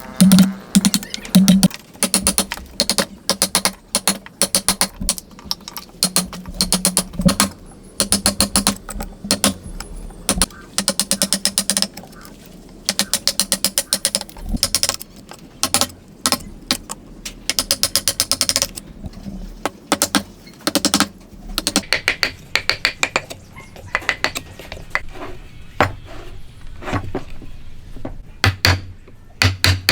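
Hand woodworking tools working wood: repeated bursts of rapid, sharp clicking strokes, each burst lasting a second or two, with short pauses between.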